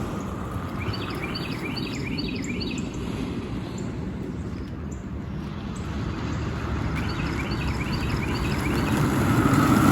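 Steady low outdoor rumble with a bird chirping quick runs of short high notes twice, about a second in and again near the end.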